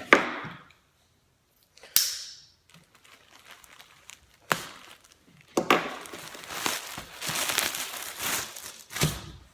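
Packaging crinkling and rustling as a folded T-shirt is handled and unwrapped. There are a few sharp clicks and taps in the first half, then a longer stretch of rustling in the second half.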